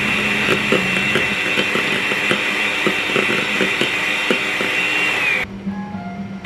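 Electric hand mixer whipping cream in a stainless steel bowl: a steady high motor whine with scattered light clicks, which dips in pitch and cuts off about five seconds in.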